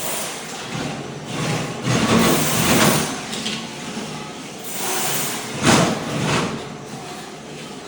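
Ride-on floor scraper's blade scraping thin-set tile mortar off a concrete slab: a loud, rough scraping noise that swells and fades, with its sharpest burst a little over two-thirds of the way through.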